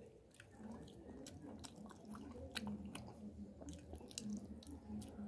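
Close-up chewing of fried fish and rice eaten by hand, with many short wet mouth clicks and smacks at an irregular pace.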